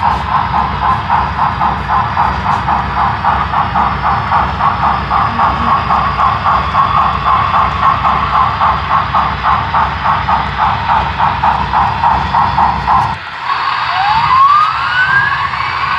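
Sound-equipped HO scale steam locomotive running, its speaker giving a steady rapid chuffing over a low rumble. After a sudden break near the end, a rising whine climbs in pitch.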